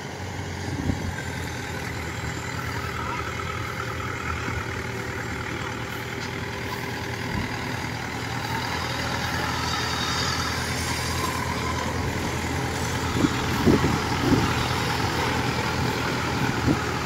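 Small engine of a tracked crawler carrier loaded with rice sacks running steadily as it drives over the stubble and up the bank, growing a little louder over time, with a few short knocks near the end.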